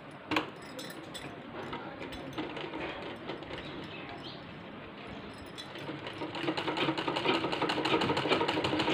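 Domestic sewing machine stitching a t-shirt sleeve seam: a single knock about half a second in, then the machine running with a fast, even rhythm that speeds up and gets louder from about five and a half seconds in.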